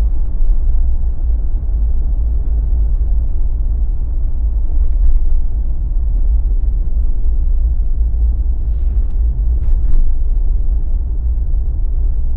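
Jeep driving on the road: a steady, loud low rumble of tyres and engine. A few faint brief knocks sound about five and ten seconds in.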